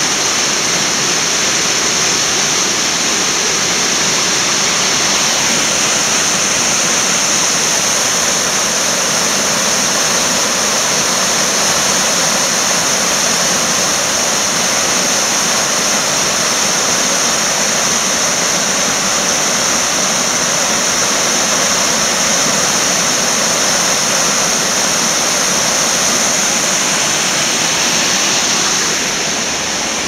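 Steady, loud rush of water from a rocky mountain creek's rapids and a small waterfall cascading over rock, easing off slightly near the end.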